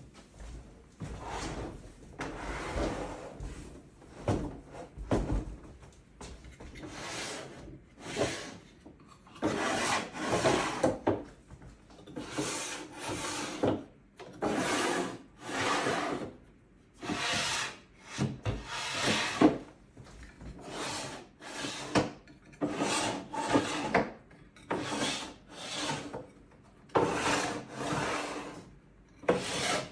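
Repeated rubbing and scraping strokes, each about a second long with short gaps, as workbench parts or drawers slide against each other during assembly.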